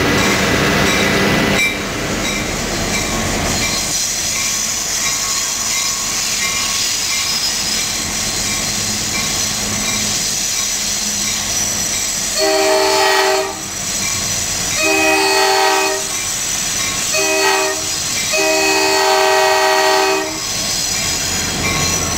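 EMD FL9 locomotive's Nathan K5LA multi-chime air horn sounding the grade-crossing signal, long, long, short, long, about halfway through. It is heard from inside the cab over the steady running of the EMD 567 diesel and the wheels on the rails.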